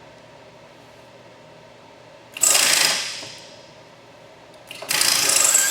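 Air-powered automatic drawbar on a milling machine's vertical spindle cycling: two loud bursts of hissing air about two and a half seconds apart, the first fading away over about a second, the second held for most of a second.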